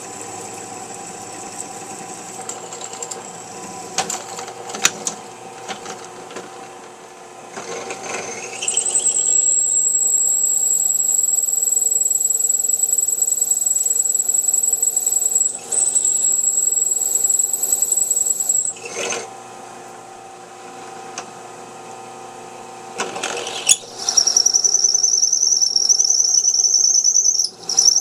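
Machine tool running with a steady motor hum, and a cutting tool squealing high and steady as it cuts into metal, for about ten seconds with one short break, then again near the end.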